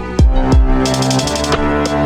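Instrumental electronic beat: deep bass kick hits that drop in pitch, held synth notes, and a fast hi-hat roll about a second in.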